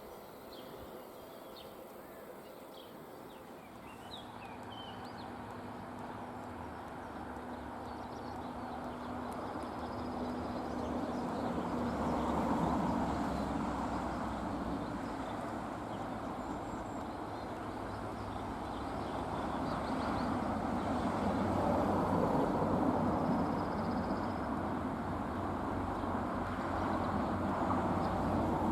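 A diesel-hauled train, an SNCF BB 60000-class locomotive at its head, drawing nearer, its engine and wheel noise growing steadily louder with a few swells. Faint bird chirps are heard near the start.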